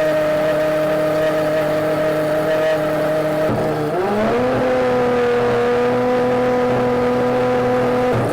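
Pagani Huayra's twin-turbo V12 engine running at steady revs, with a gear change about three and a half seconds in: the pitch dips, then climbs back and settles on a slightly lower steady note.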